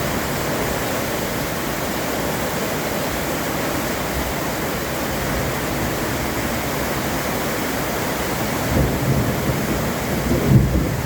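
Steady heavy rain, an even hiss throughout, with a few brief low bumps near the end.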